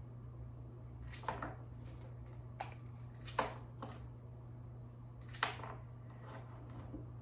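Bypass pruning shears snipping through pothos vine stems: several sharp clicks at irregular intervals as stem sections are cut off. A steady low hum runs underneath.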